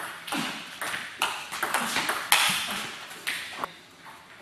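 Table tennis rally: a celluloid ball cracking off rubber paddles and clicking on the tabletop, a sharp hit every half second or so, with one louder crack a little past two seconds in that echoes briefly in the hall. The hits stop just before the end.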